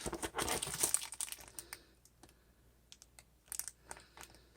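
Rapid clicking and rustling of plastic packaging as a 3D-printer accessory is unpacked by hand, dense for the first couple of seconds, then a few scattered clicks.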